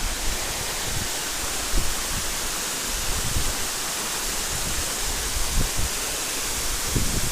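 Steady rushing of a waterfall close by, an even hiss of falling water, with a few short low thumps on the microphone.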